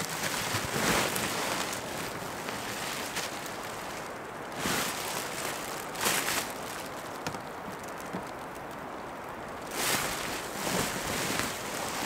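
Nylon shell of a down sleeping bag rustling in several short swishes as a person shifts and lies down in it, over a steady background hiss.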